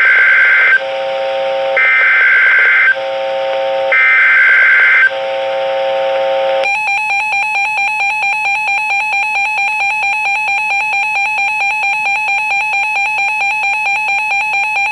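Emergency Alert System signals opening a new warning: three roughly one-second bursts of buzzing digital header tones about a second apart, which encode the alert, then, about six and a half seconds in, the long steady attention tone with a slight even pulse.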